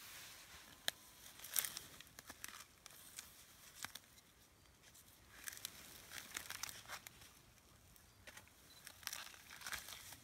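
Young mountain gorilla stripping the papery sheath off a fresh bamboo shoot and biting into it: crackling tears and crunches that come in bunches, about a second and a half in, around six seconds, and again near the end.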